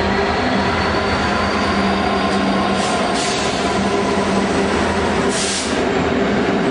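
Class 66 diesel-electric locomotive passing close by under power, its two-stroke diesel engine running with a steady drone and a faint high whine, hauling tank wagons. Two short hisses come about three and five and a half seconds in, and near the end the engine drone gives way to the noise of the wagons' wheels on the rails.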